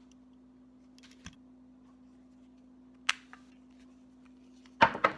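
Plastic and metal parts of a Sennheiser SKM 5000 handheld wireless mic being handled as it is taken apart: a few faint clicks about a second in, a sharp click about three seconds in, and two louder knocks close together near the end.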